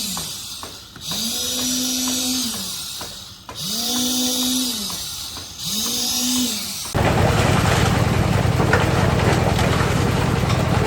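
An electric power tool run in short bursts, four times, each spinning up to a steady whine with a high hiss for about a second and a half and then winding down. About seven seconds in, a louder steady machine noise with a low hum starts abruptly and keeps running.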